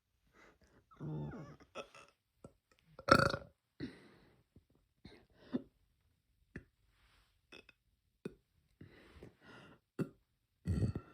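A girl burping several times: a loud burp about three seconds in, smaller ones about a second in and near the end, with short faint clicks between.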